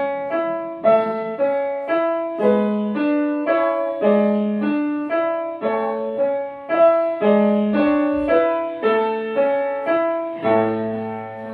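Upright piano played in an even pattern of broken chords, about two notes a second, closing on a held chord with a low bass note near the end.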